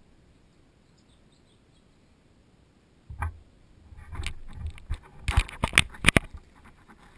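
Handling noise from the camera: a thump, then a run of knocks, clicks and clatter, the loudest a few sharp clicks near the end, as it is moved along a wall and in through a sliding door.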